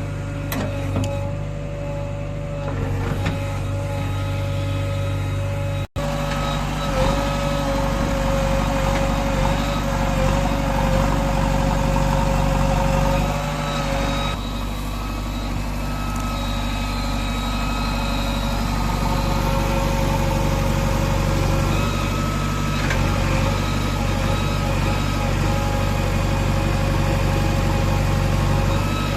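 Heavy diesel engine of earthmoving machinery running steadily, with a high steady whine over it that wavers in pitch.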